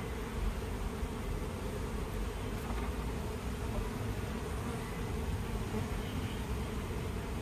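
A honeybee colony humming steadily from an open hive box.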